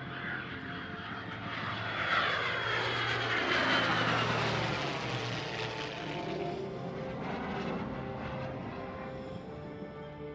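A P-51 Mustang and an F-22 Raptor flying past in formation: the engine noise swells about two seconds in, then drops in pitch and fades as they go by. Soft background music plays underneath.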